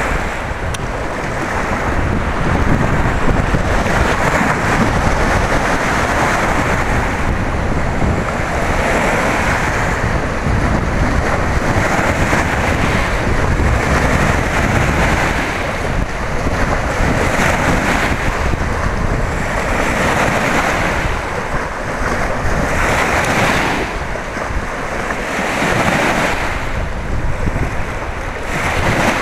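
Choppy, wind-driven lake waves washing and splashing over a rocky shore, swelling every two to three seconds, with wind buffeting the microphone.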